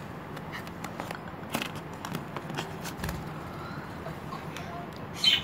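Scattered small clicks and rustles of hands working yarn with a metal crochet hook, over a faint steady hum.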